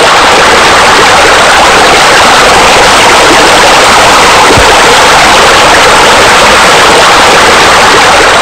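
Loud, steady rush of splashing water from a spa spillover pouring into a pool, with the spa's bubblers.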